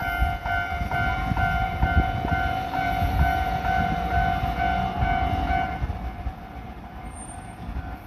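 Japanese railway level-crossing warning bell ringing, a two-tone electronic ding repeating about three times a second, stopping about six seconds in. A steady low rumble runs underneath.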